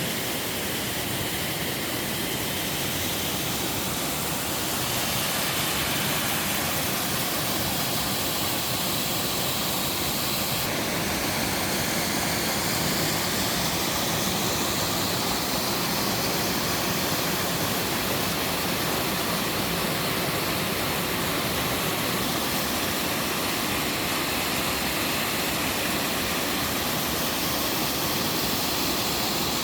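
Mountain-valley waterfall, water falling and rushing in a steady, dense hiss, slightly louder after about five seconds.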